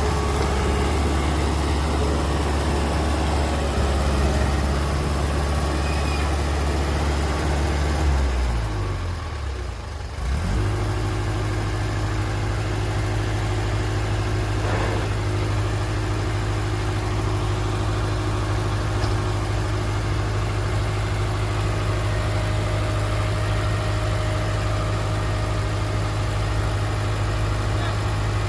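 Heavy diesel engine of a dump truck or bulldozer running steadily. About eight seconds in its pitch falls away as it slows down. From about ten seconds a steady engine note runs on.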